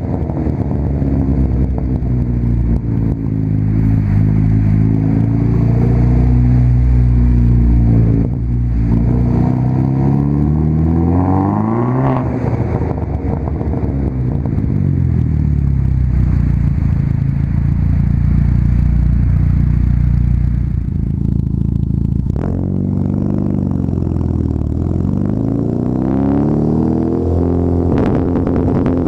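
A 2009 Chevy Cobalt SS's turbocharged 2.0-litre four-cylinder running through a muffler-deleted 3-inch straight-pipe exhaust, heard right at the tailpipe. The revs climb and drop back several times, with a steadier stretch in the middle and a sharp click about two-thirds of the way through.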